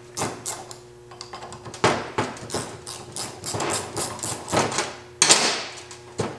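Metal clicking and clinking as a brake caliper bracket and its bolts are unbolted and handled on a trailing-arm hub. A string of quick clicks runs through the middle, with a louder clank about five seconds in.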